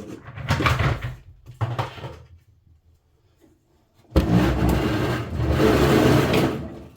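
Vacuum cleaner motor and suction running for about two and a half seconds, starting abruptly about four seconds in and then dying away. Shorter bursts of noise come before it.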